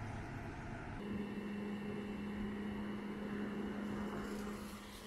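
A vehicle engine running steadily, a constant low hum over a rushing hiss; the hum shifts abruptly to a slightly higher, stronger note about a second in.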